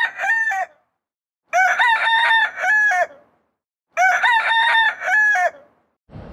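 A rooster crowing sound effect, the same crow played over three times with dead silence between. Near the end, steady outdoor background noise begins.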